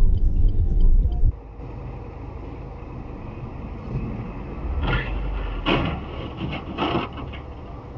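Dashcam cabin audio: a loud low road rumble that cuts off about a second in, then a quieter hum with three short scraping crunches between about five and seven seconds in, as a truck tractor unit pushes into the side of a car.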